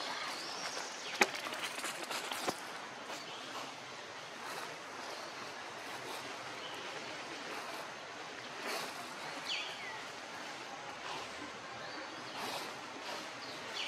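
Steady outdoor forest background hiss, with a sharp click about a second in, a few softer clicks shortly after, and a short falling chirp later on.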